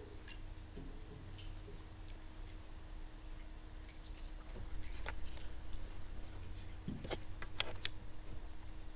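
Scattered small clicks and light clinks of communion cups and tray being handled, a few louder ones about five and seven seconds in, over a steady low room hum.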